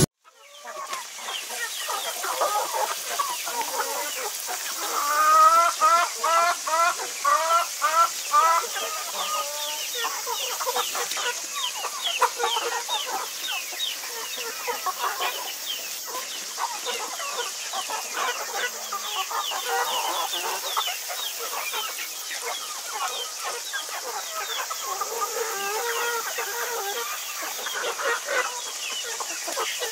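A flock of chickens clucking, many short overlapping calls. About five seconds in, one bird gives a louder run of about ten repeated calls that lasts some five seconds.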